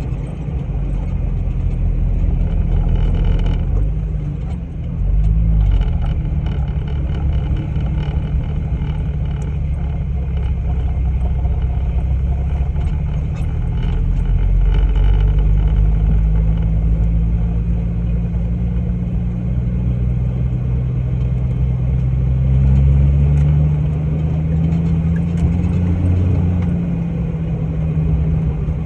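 An off-road vehicle's engine runs continuously under load while driving, its pitch rising and falling as it revs up and eases off.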